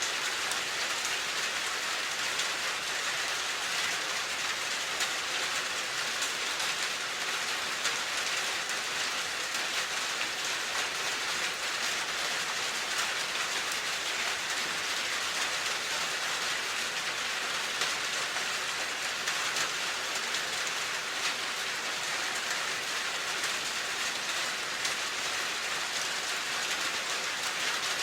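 Steady rain falling, a dense even hiss with many small drop ticks on a hard surface.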